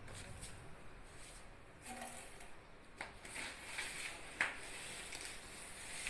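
Soft long-handled broom swishing across a hard floor in short strokes, with a few light taps and one sharper knock about two-thirds of the way through.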